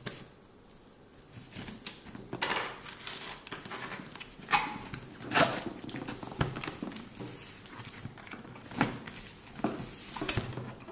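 Corrugated cardboard shipping box being opened by hand: taped flaps pulled apart and lifted, with irregular tearing, scraping and rustling of cardboard and several sharp knocks as the box is handled. It starts about a second and a half in.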